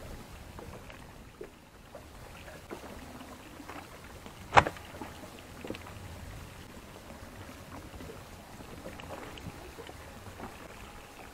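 A single sharp knock about four and a half seconds in, with a few fainter knocks and handling noises from things being moved about on a small inflatable boat, over a low steady sea background.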